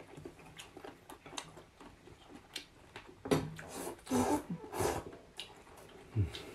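Close-up eating sounds of rice noodle soup: wet chewing and mouth clicks throughout, with three longer noodle slurps between about three and five seconds in.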